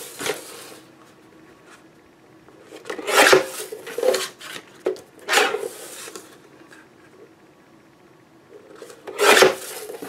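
Paper sliding and rustling on a Swingline guillotine paper trimmer in several short bursts as the sheet is positioned and squared, with the trimmer's blade arm brought down to slice it near the end.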